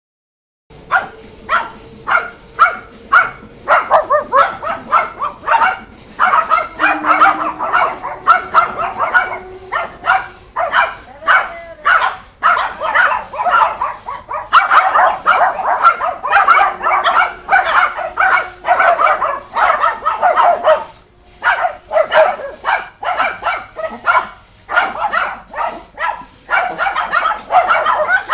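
Pet dogs barking and yipping excitedly, a rapid stream of short barks several a second that keeps going almost without pause.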